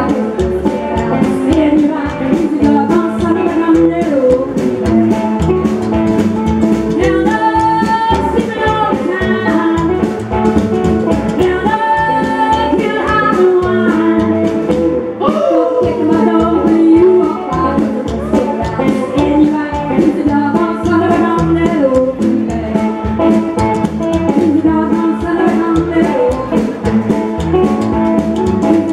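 Live band music: a woman singing over a hollow-body electric guitar, upright double bass and drum kit, with a steady beat.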